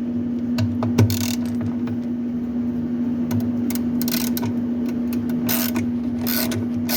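A socket wrench with an extension being fitted to the washing machine's agitator bolt: a knock about a second in, then a few short bursts of metal tool noise, over a steady hum.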